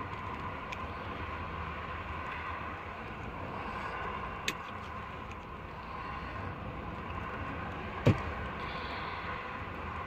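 Steady low background rumble, with a sharp click about four and a half seconds in and a louder snap about eight seconds in from crimping pliers working the wire leads.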